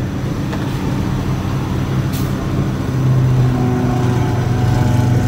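Box truck's engine and road noise heard from inside the cab while driving. The engine drone grows louder and fuller about three seconds in, and there is a brief click just after two seconds.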